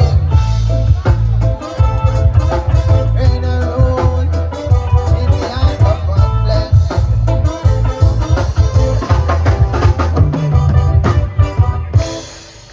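Live reggae band playing with a heavy, pulsing bass line, drums and pitched instruments. The music stops near the end.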